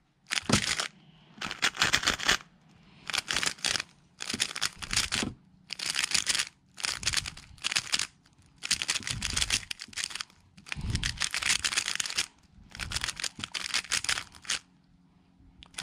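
MoYu RS3M 2020 magnetic 3x3 speedcube being turned at speed: about a dozen short runs of rapid clicking layer turns, each a second or less, with brief pauses between them, as PLL algorithms are executed one after another.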